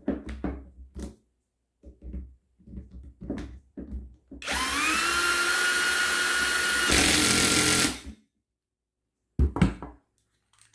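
A Philco cordless drill/driver's motor spins up about four seconds in and runs steadily for about three and a half seconds with its chuck gripped by hand, turning harsher in its last second. Before it come a few clicks and knocks of the tool being handled.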